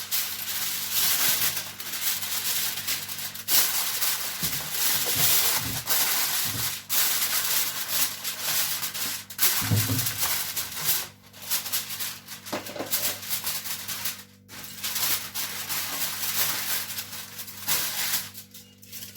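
Aluminium foil crinkling and rustling as a sheet is pressed and folded down over a tray of chicken pieces, in irregular crackly bursts with a few short pauses.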